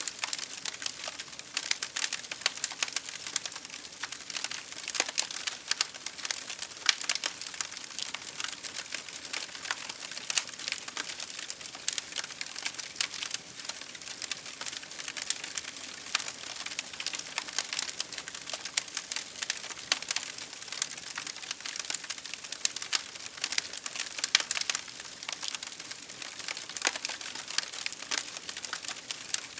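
Fire crackling: many irregular sharp pops and snaps over a soft, steady hiss.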